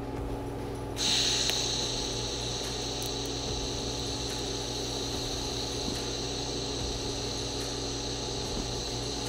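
TIG welding arc striking about a second in, then running with a steady high-pitched hiss while a plug weld is laid on a steel rifle receiver, over a constant low electrical hum.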